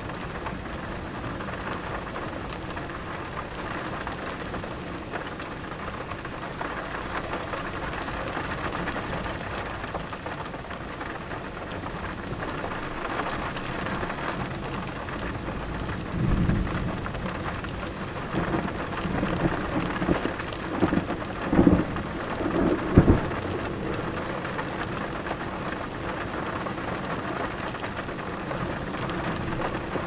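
Thunder from an approaching severe thunderstorm squall line: a series of low rumbles starts about halfway through, with the loudest peals about two-thirds of the way in. A steady rushing hiss runs underneath.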